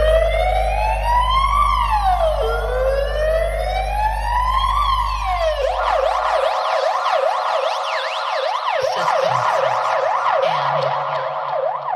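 Siren sound effect played through a large DJ sound system during a sound check. It gives two slow wails that rise and fall over a deep steady bass tone. About halfway through it switches to a quicker yelp sweeping up and down, and the bass drops out.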